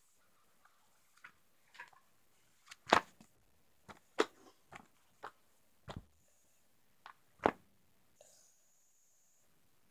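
Irregular sharp clicks and knocks of handling noise close to the microphone, about a dozen scattered over several seconds, with a faint high whine briefly near the end.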